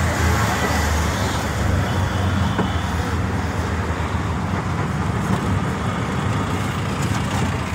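Auto-rickshaw engine running steadily as it drives, with road traffic noise around it, heard from inside the open-sided passenger cabin.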